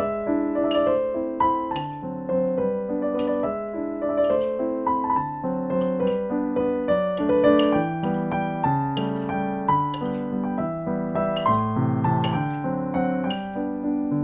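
Background piano music: a steady run of notes with several sounding together, played at an even pace.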